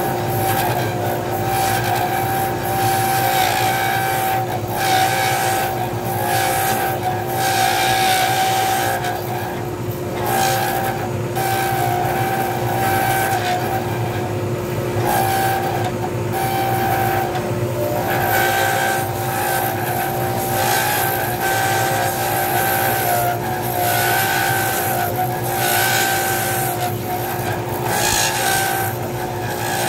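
Lathe running with a steady motor hum while a hand-held turning tool cuts a spinning cast resin pen blank. The cutting noise comes and goes with each pass of the tool, and a higher whine drops out and returns many times.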